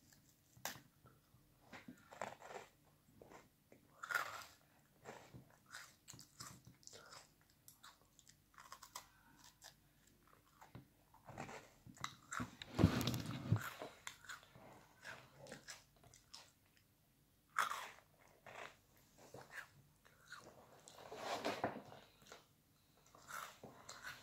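Close-up crunching and chewing of crisp Lotus caramelised biscuits, many short crackles between bites. About halfway through there is one louder, duller thump.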